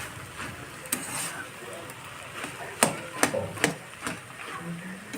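Cooking spoon knocking and scraping in a kadai while potatoes and aubergine are broken up and stirred in the curry: a sharp knock about a second in, then three quick knocks about three seconds in.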